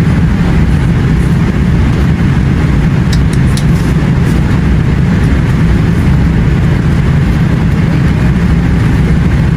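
Jet airliner cabin noise in flight: a loud, steady, low rush of engines and airflow, with a few faint clicks about three seconds in.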